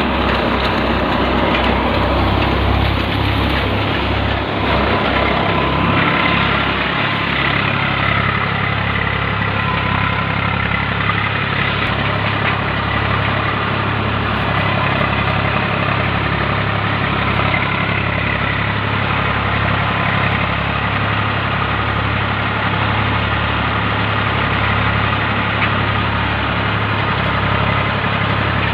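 Sonalika tractor engine running steadily while it drives a Shaktiman paddy thresher, with a continuous drone and steady higher machine tones above it. The engine's beat pulses for the first several seconds, then settles into an even drone.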